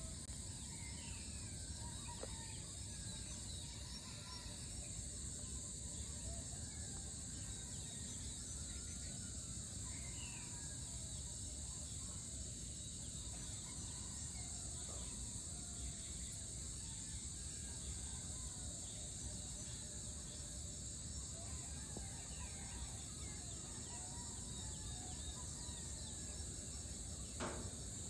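Morning ambience of insects and birds: a steady high insect drone with many short bird chirps and calls scattered through it, over a low steady rumble. A single sharp click near the end.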